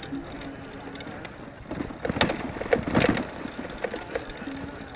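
A 1000 W fat-tire e-bike's electric motor humming steadily as it climbs a steep grassy hill under load. Through the middle there is a cluster of sharp knocks and rustling.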